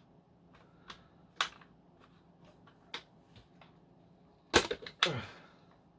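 Sharp plastic clicks and knocks from handling a Dyson V10 Animal cordless vacuum while taking its bin off: a few scattered single clicks, then a louder cluster of knocks about four and a half seconds in.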